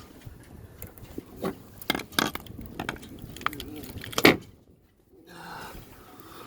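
Scattered metallic clicks and knocks from handling a screwdriver and the loose pieces of an aluminum mast ring, with one loud knock about four seconds in.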